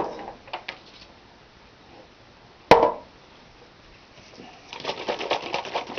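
A single sharp knock on the table, then from about five seconds in a carton of beef broth being shaken rapidly.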